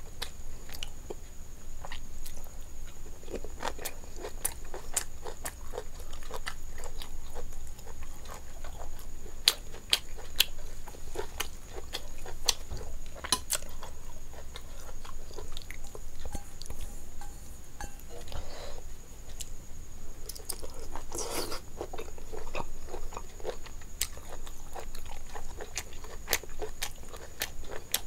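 Close-miked chewing and biting of chicken gizzards in curry with rice: wet mouth sounds with frequent sharp, irregular clicks and smacks.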